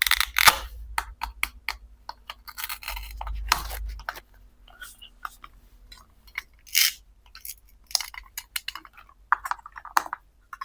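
Plastic toy kitchen pieces being handled: a string of irregular clicks, taps and light clatters, with a low rumble in the first few seconds.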